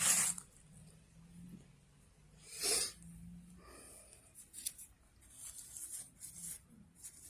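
Short rustling and scraping handling noises: two louder ones, at the start and about three seconds in, then several quicker, fainter ones.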